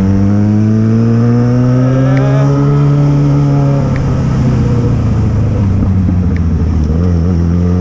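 Yamaha XJ6 motorcycle's inline-four engine under way, its note climbing steadily as it accelerates, easing off about four seconds in, then climbing again near the end.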